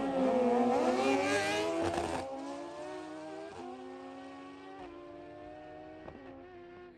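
Two street bikes launching off the line and accelerating hard down a drag strip, their engines climbing in pitch with a short break at each of several gear changes. They grow steadily fainter as they pull away.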